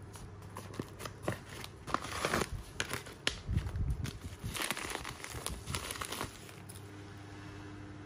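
Padded mailer and soft wrapping crinkling and rustling as hands pull a wrapped item out and unwrap it, in a run of irregular crackles that stops about six seconds in. A faint low hum runs underneath.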